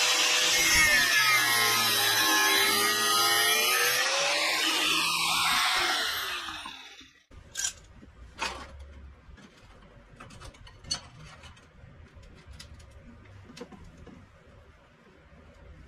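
Power tool running under changing load, its pitch dipping and rising, then switched off and spinning down about six seconds in. Quieter scattered taps and clicks of handling follow.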